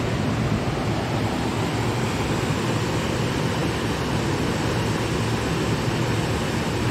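A waterfall and the white water at its foot give a steady, loud rushing noise that does not change.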